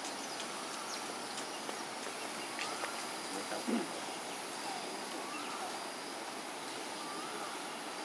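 Steady outdoor background noise, with faint short chirps that rise and fall a few times and one brief low sound about three and a half seconds in.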